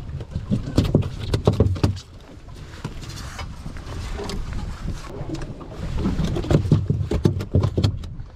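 Rapid, irregular knocking and thumping in two spells of about two seconds each, with a quieter stretch between.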